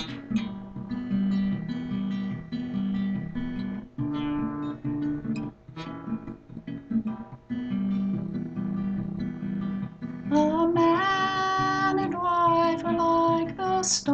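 Acoustic guitar playing a chord pattern as a song's intro; a woman's voice comes in singing about ten seconds in.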